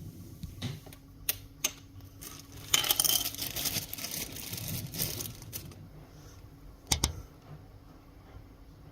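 Laptop parts being handled during a repair: a few small plastic clicks, a loud scraping, crackling stretch about three seconds in, and a sharp double click about seven seconds in.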